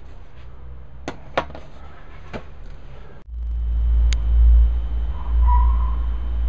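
A few soft clicks, then a low rumble that starts suddenly about three seconds in and carries on, with one sharp click soon after and a faint high tone coming in near the end.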